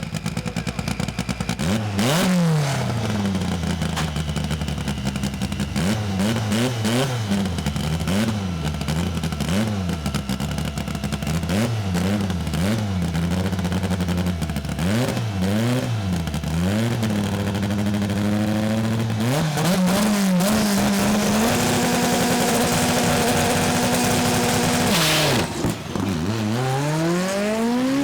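Drag race car engine revved up and down repeatedly, then held at steady high revs for a few seconds. It drops briefly near the end and climbs again.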